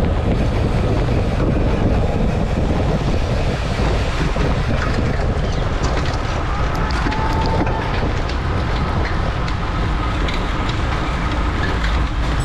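Wind rushing over the microphone of a bike-mounted camera in a fast-moving road-bike pack, with tyre and road rumble. It eases slightly about four seconds in as the pack slows onto a climb, with scattered faint clicks.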